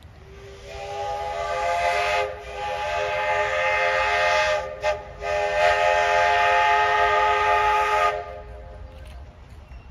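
Chime steam whistle of a 4-6-2 Pacific steam locomotive sounding several notes at once in a pattern of long, long, short, long: the grade-crossing signal.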